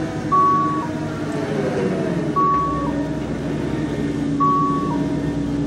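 Level-crossing warning signal sounding a two-note electronic tone, a held high note dropping to a slightly lower one, repeating about every two seconds. Under it, a low hum and rumble grow from about halfway through as an electric LEW mining locomotive's coal train approaches.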